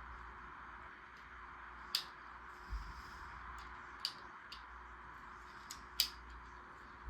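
Plastic LEGO pieces clicking and tapping as they are handled and pressed into place: scattered sharp clicks, the loudest about two, four and six seconds in, over a steady faint hiss.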